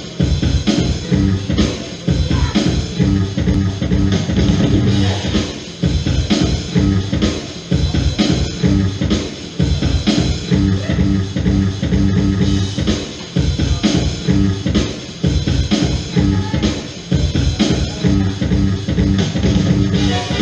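Loud music with a drum kit, bass guitar and guitar, playing a steady beat for breaking.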